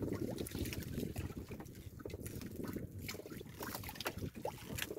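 Sea water lapping and splashing against the hull of a small wooden outrigger fishing boat, with a low rumble of wind and scattered small splashes and knocks.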